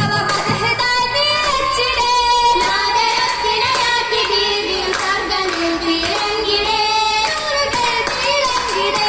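A group of girls singing an Oppana (Mappila) song together, with handclaps from the dancers keeping the beat.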